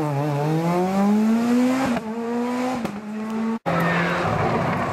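Skoda Fabia S2000 rally car's naturally aspirated four-cylinder engine accelerating hard, its pitch climbing, dropping at a gear change about two seconds in, then climbing again. It cuts off abruptly about three and a half seconds in and is replaced by a Mitsubishi Lancer Evo rally car's engine running as it approaches.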